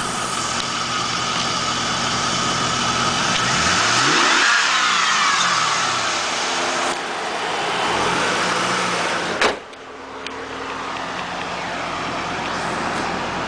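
2001 Pontiac Trans Am WS6's 5.7-litre LS1 V8 idling, revved once about four seconds in, rising and falling in pitch, and blipped more lightly around eight seconds. About nine and a half seconds in, a sharp bang as the hood is slammed shut, after which the idle is quieter.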